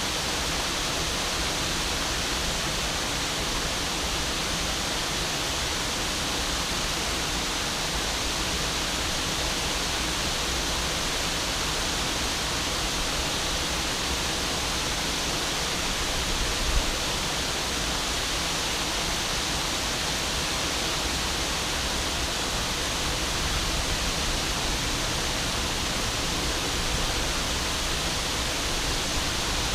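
A river waterfall rushing steadily: an even, unbroken noise of falling water.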